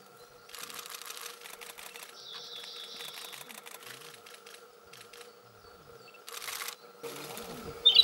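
Japanese robin singing: a faint, rapid rattling trill about two seconds in, and the loud rattling trill of its song starting right at the end. Bursts of hiss come and go in between.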